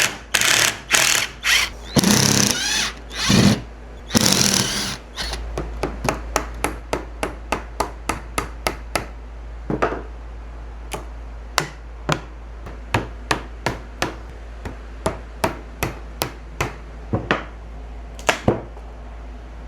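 Hammer strikes on a vintage wooden cabinet, knocking its loose glued joints apart. A few longer, louder noises in the first five seconds, then a steady run of single sharp knocks, about one or two a second.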